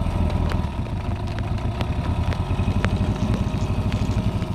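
Yamaha 9.9 outboard motor running steadily at low revs, with an even pulsing beat.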